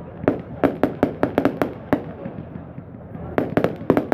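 Display fireworks: aerial shells bursting overhead in a rapid, irregular run of sharp bangs, with a short lull about halfway through and then a dense cluster of reports near the end.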